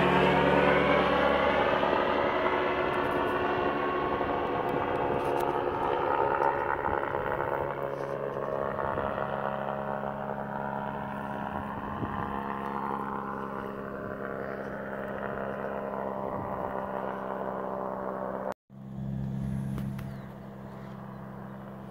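Aerolite 103 ultralight's engine and propeller droning in flight, slowly fading as it flies away, its pitch sliding down. After a sudden cut about three seconds before the end, the engine drone is heard again, quieter and steady.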